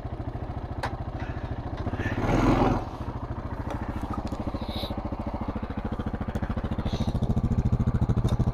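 ATV engine idling with an even, rapid pulse, a louder noisy clatter about two seconds in.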